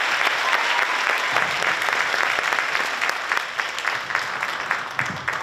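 Audience applauding in a hall, the clapping slowly thinning out and dying down toward the end.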